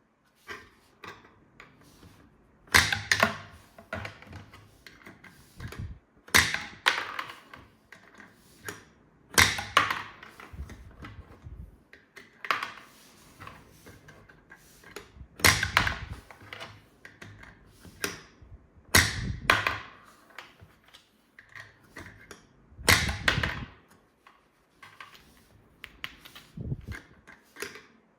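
Hard plastic toy parts being handled and clicked: bunches of sharp clicks and knocks every three seconds or so, with lighter ticks in between.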